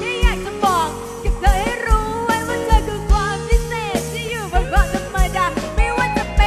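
Live band music with a steady kick-drum beat under a melody line that bends and slides in pitch.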